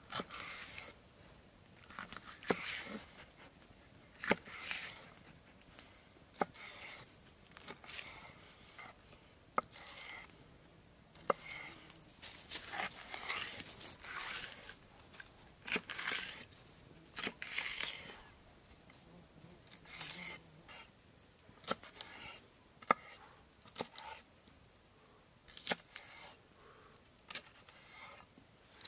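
Hand cutting and scraping work: irregular tearing, scraping strokes, each under a second or so, with sharp knocks and clicks in between.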